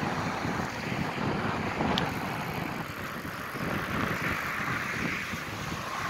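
Wind buffeting the microphone on a moving bicycle: a steady rushing rumble and hiss of moving air.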